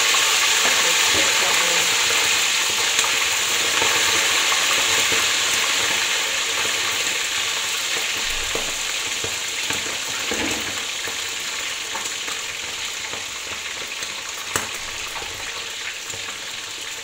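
Parboiled chicken drumsticks deep frying in hot oil in a steel wok: a loud, dense sizzle, strongest as the batch goes in and slowly dying down. There are a few light knocks of the wire spider strainer against the wok as the pieces are stirred.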